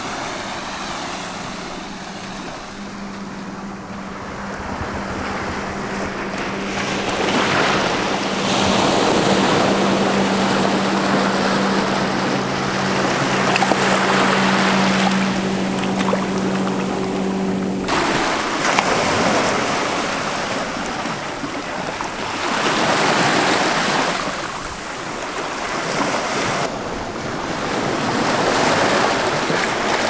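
Small ocean waves washing in between rocks onto a sandy shore, the surf swelling and easing every few seconds. A steady low hum runs under the surf for the first half and cuts off suddenly.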